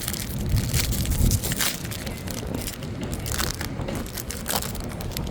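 Wrapper of a Topps baseball card pack being torn open and crinkled by hand, a run of irregular crackles, over a low wind rumble on the microphone.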